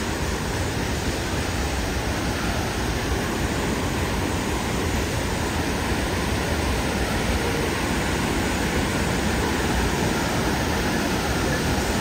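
Waterfall's falling water, a steady rush with no change in level.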